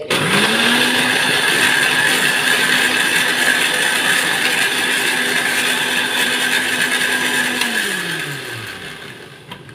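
Electric countertop blender running, puréeing soaked dried chillies, ginger, an egg and a little water into a wet paste. The motor spins up quickly at the start, runs at a steady pitch, and winds down with a falling pitch near the end after it is switched off.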